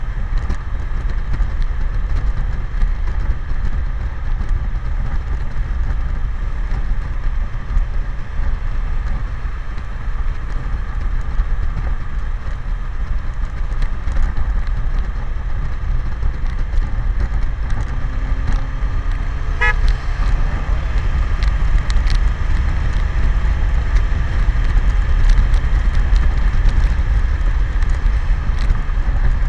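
Wind rushing over the camera microphone on a BMW K1100LT touring motorcycle riding at road speed, a steady loud rumble with engine and road noise beneath it. A few faint gliding tones come in about two-thirds of the way through.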